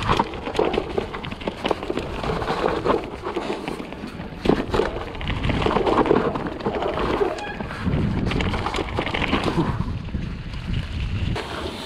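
Mountain bike ridden fast downhill over rough, snowy ground: tyres rolling and skidding on dirt and snow, with frequent clattering knocks from the bike as it hits bumps.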